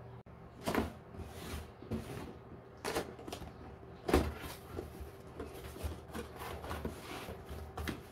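Cardboard box being handled and opened by hand: flaps pulled open, with cardboard scraping and a string of knocks, the sharpest about a second in and about four seconds in.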